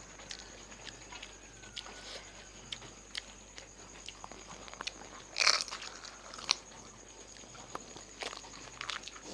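Eating fuchka (pani puri): scattered crisp crunches and chewing, with one louder burst about five and a half seconds in.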